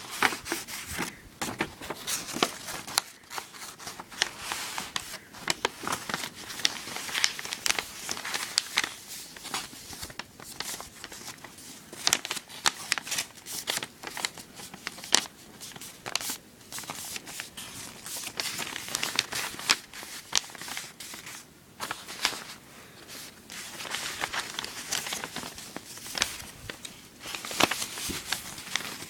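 Sheet of origami paper being folded and creased by hand: irregular crinkling and crackling with sharp little clicks as the folds are pressed flat.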